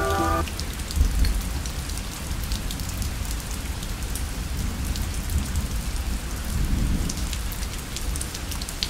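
Background music stops about half a second in, leaving steady outdoor noise: a low rumble with scattered light crackles, like rain or wind and handling on a handheld microphone.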